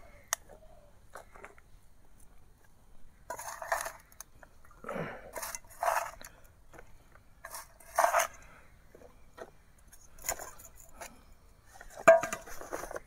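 Hand scooping kitchen compost out of a shallow metal bowl: fingers scraping on the metal and compost rustling, in short bursts every second or two, with a sharp knock near the end.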